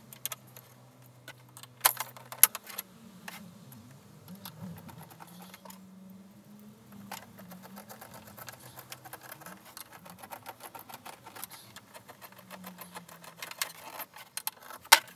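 Steel drawer runners and screws being handled and a hand screwdriver being worked, making metallic clicks and clinks. There are sharp clacks about two seconds in and again near the end, and dense fine clicking through the middle.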